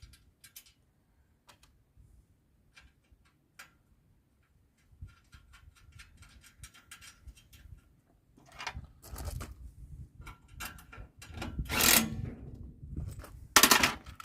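Metal clicks and clinks of nuts and bolts being fitted by hand to a log splitter's steel leg brackets, with a quick run of ticking partway through, then louder clanks and scrapes of metal in the second half, the loudest two near the end.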